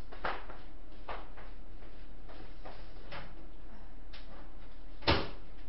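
Faint clicks and clatter from household handling, then one sharp knock about five seconds in, over a low steady hum.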